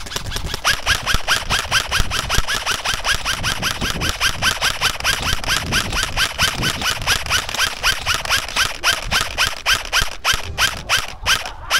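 A long, even run of sharp mechanical clicks from an airsoft rifle's gear, about six a second, each with a short rising chirp.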